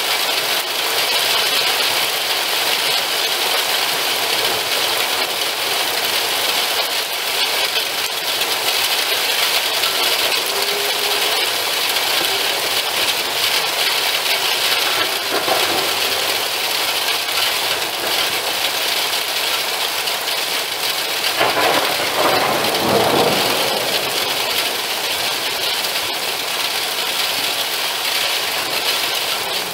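Heavy rain mixed with hail, falling steadily on a lawn and nearby surfaces, with hard pellets rattling. About three-quarters of the way in, a louder surge lasts a couple of seconds.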